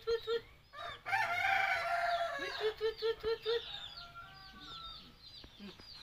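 A rooster crowing once, long and loud, about a second in. Before and after it come two runs of five or six short, evenly spaced low hooting notes, and small birds chirp high in the background throughout.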